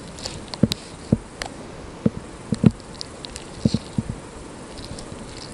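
Soft, irregular knocks and scrapes of a knife blade working sticky paste bait in a small plastic cup while loading it into a syringe, over a steady background hiss.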